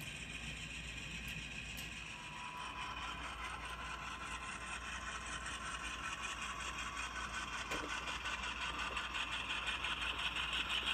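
HO-scale model diesel freight train running by: a steady motor whir with a fast, even clicking of wheels on the track, growing louder as the locomotive comes closer.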